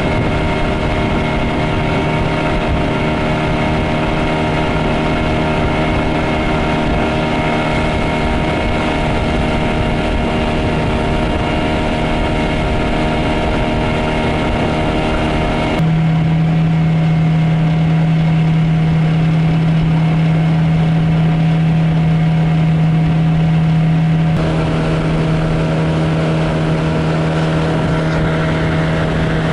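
Suzuki DT9.9S two-cylinder two-stroke outboard running steadily, pushing an aluminium boat along at speed; the motor was run in recently after ten years in storage. Its tone changes abruptly about halfway through and again some eight seconds later.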